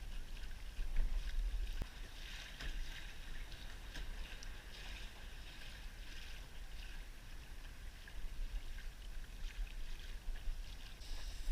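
Water lapping and splashing against a Hobie Outback kayak's hull as it moves along, in uneven patches of hiss, over a steady deep rumble of wind on the microphone.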